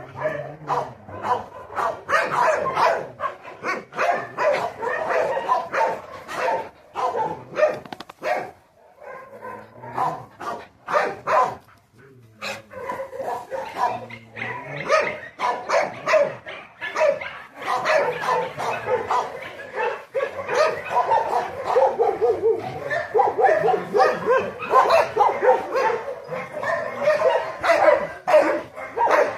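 A dog barking over and over in quick runs of short barks. It eases off about nine seconds in and picks up again around twelve seconds.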